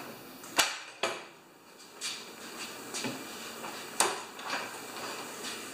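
A John Deere LX178 lawn tractor being shaken by hand with its engine off: about six sharp knocks and clunks of its metal and plastic parts, roughly a second apart.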